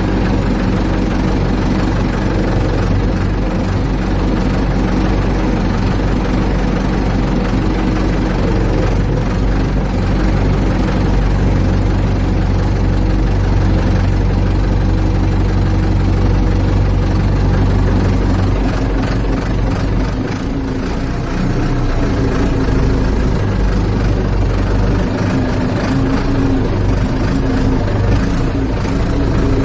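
Ford 755 backhoe's engine running steadily while the machine is worked. Its note dips briefly about twenty seconds in and shifts pitch again a few seconds later.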